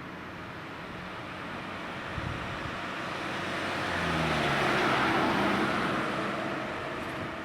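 A road vehicle driving past without a siren, its tyre and engine noise swelling to a peak about five seconds in and then fading.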